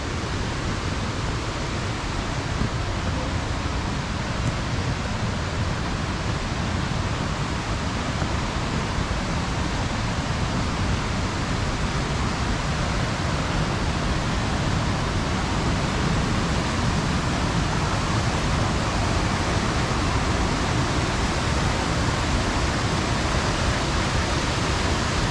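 Tall single-drop waterfall pouring: a steady, unbroken rush of falling water.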